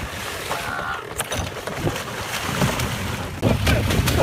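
Sea water splashing and churning as a shark thrashes against the side of a kayak, with a louder burst of splashing about three and a half seconds in as the kayak capsizes and the angler goes into the water. Wind on the microphone throughout.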